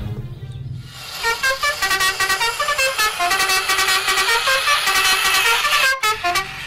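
Buzzy electronic melody of quick stepping notes, starting about a second in and breaking off briefly near the end.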